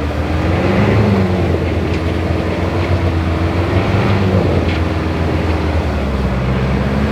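Off-road vehicle's engine running steadily at low revs, its pitch drifting up and down slightly.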